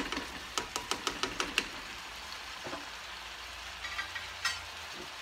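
A measuring spoon knocked repeatedly on the pan to shake tomato paste into ground beef and vegetables frying, about five quick sharp taps a second for the first second and a half. A soft sizzle from the pan runs underneath, with a few lighter clicks near the end.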